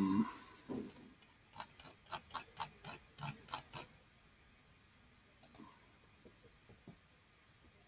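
A short low grunt-like hum from a person close to the microphone, then a quick run of soft ticks, about four a second, as a computer mouse's scroll wheel is turned, and about halfway through a sharp double click of the mouse button.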